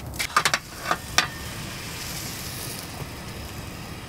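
A few clicks of a hand pepper grinder in the first second, then a steady sizzling hiss from a frying pan heating butter on a portable butane stove.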